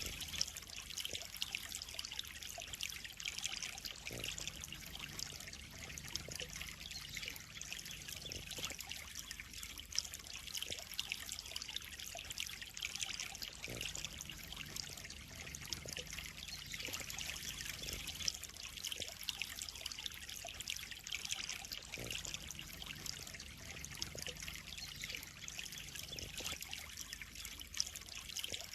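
Water trickling and splashing steadily into a koi pond, a constant fine spatter with no pauses.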